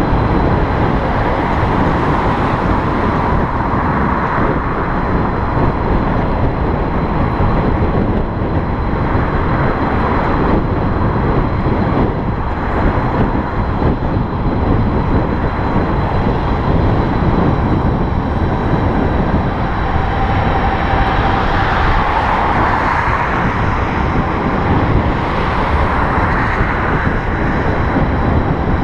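Steady, loud rush of wind and road noise on the microphone of an electric bicycle riding along a road.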